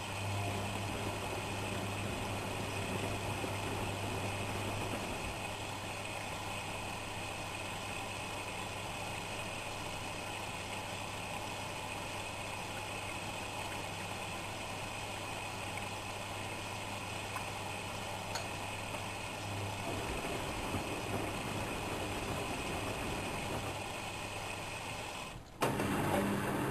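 Whirlpool Expert 1000 washing machine running with a steady mechanical hum. The low hum fades about twenty seconds in, and the sound drops out and changes abruptly near the end.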